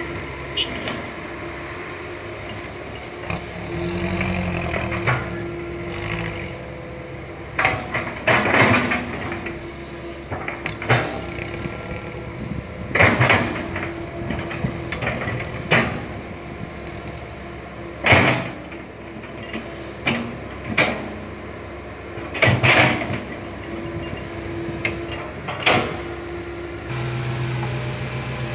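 Komatsu PC160 hydraulic excavator running steadily while digging and loading soil into a dump truck, with repeated loud, irregular clanks and scrapes from the work.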